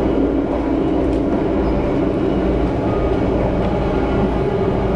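Steady rumble and running noise of a moving passenger train, heard from inside the carriage.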